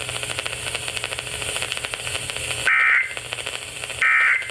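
Weather radio hiss and hum with a fine crackle, then, past halfway, two short bursts of shrill EAS data tones about a second and a half apart: the SAME end-of-message code that closes the spoken warning.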